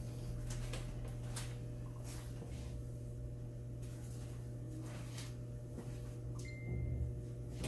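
Steady low hum with scattered faint clicks and taps, and a brief high tone about six and a half seconds in.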